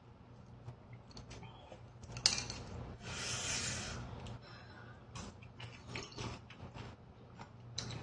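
Noodle-eating sounds: chopsticks clicking against a stainless steel bowl, with one loud click about two seconds in, followed by a wet noodle slurp lasting about a second, and small chewing clicks.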